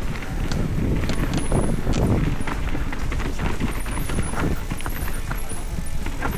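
Mountain bike rolling fast down a rocky technical trail: tyres crunching over dirt and rocks, with many quick knocks and rattles from the bike and a steady low rumble of wind on the microphone.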